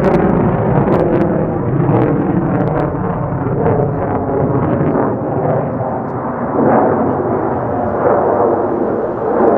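Jet noise from an F-35A Lightning II's single F135 afterburning turbofan as it flies a turn overhead: a loud, steady rumble with a ragged crackle running through it.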